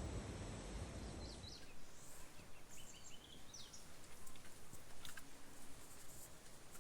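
Faint outdoor ambience with a low rumble for the first second and a half, then a few short, high bird chirps about two to three seconds in.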